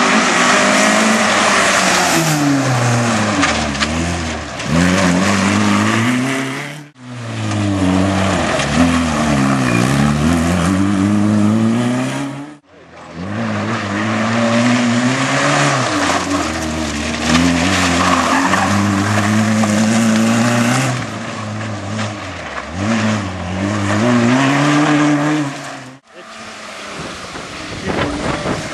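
Rally Opel Corsa engine revving hard, its pitch climbing and dropping again and again as the car is driven at speed through the gears. The sound breaks off abruptly three times where shots are cut together.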